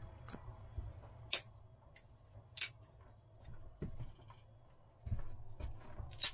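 Small dry kindling wood cracking sharply three times, about a second and a half in, at two and a half seconds and at the very end, with lighter clicks and rustling handling of the wood between, louder from about five seconds in.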